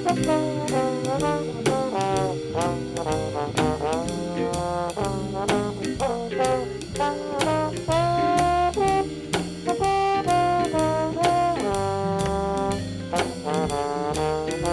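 Jazz played by a brass band: trombone, trumpet and saxophone over a drum kit keeping a steady beat.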